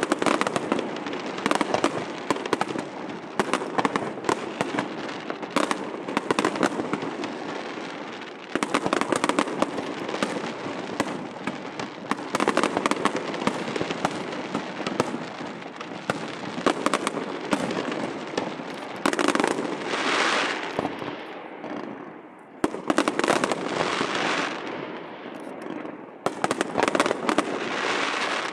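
Aerial fireworks display over a harbour: shell bursts and pops in quick, dense succession. It eases off briefly about two thirds of the way through, then builds again.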